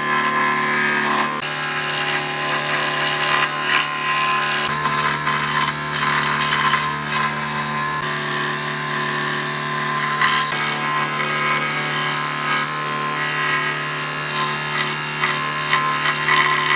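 Ryobi 405 mm scroll saw running, its reciprocating blade cutting through a wooden board: a steady motor hum under the continuous rasp of the blade in the wood.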